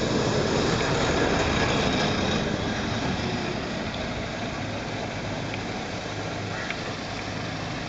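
Heavy diesel engine of road construction machinery running, louder for the first few seconds and then steady with a low hum.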